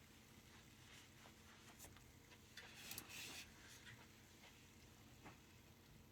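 Near silence, with scattered faint clicks from a computer mouse and a short rustle about three seconds in.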